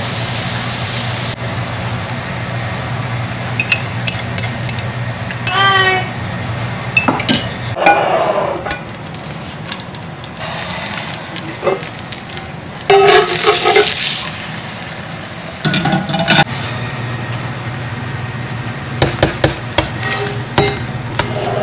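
Food frying in a pan while it is stirred with a utensil that clinks and scrapes against the pan. A steady low hum stops about eight seconds in.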